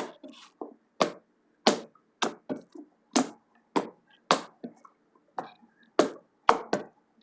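Slime being squeezed and pressed by hand, giving a string of sharp pops and crackles, roughly one every half second.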